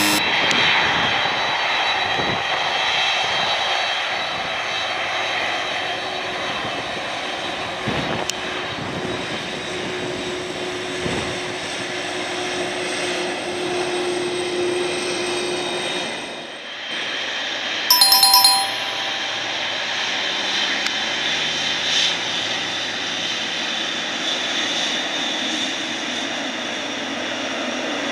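Jet airliner engines running steadily as a Boeing 767 freighter taxis. After a brief drop a little over halfway through comes the low, powerful sound of a Boeing 777-200LR's General Electric GE90 engines taxiing past, and just after the change a two-tone ding-dong chime sounds once.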